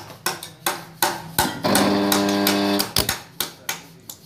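A 2 HP single-phase electric motor being fed mains power through hand-held leads. There is a run of sharp cracks as the leads touch the terminals, and about two seconds in the motor hums for about a second without starting. This is a stalled motor that will not turn over, which the repairer traces to a loose bearing fit on the shaft.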